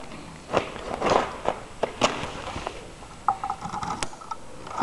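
Scattered scrapes and clicks from handling and moving about beside a homemade minibike, with a faint steady whine lasting about a second a little past the middle.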